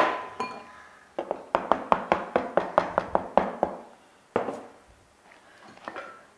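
Pastry dough being handled on a plastic pastry board. A sharp knock comes at the start, then a quick run of about fifteen sharp taps, some six a second, as the board is dusted with flour. A single knock follows as the dough is set back down, and there is softer handling near the end.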